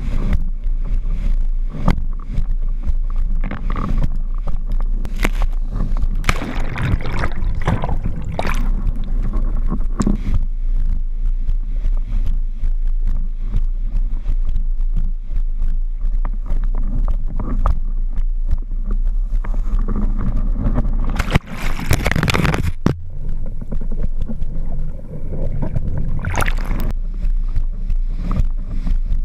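Windsurf board planing fast across choppy water: a steady low wind rumble on the microphone under rushing water and hissing surges of spray, the loudest about twenty-two seconds in.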